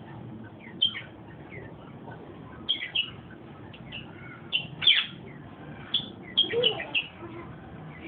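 Caged rosella parrots calling with short, high chirps, some sliding quickly downward. They come every second or so and crowd together in the last couple of seconds.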